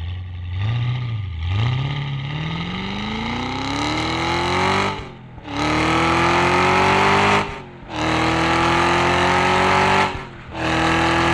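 Cadillac V-Series Blackwing engine accelerating hard through the gears of its manual transmission. After a short rev near the start, the engine note climbs steadily. It breaks briefly three times, about five, seven and a half and ten seconds in, as the driver upshifts, and after each shift the note restarts lower and climbs more slowly.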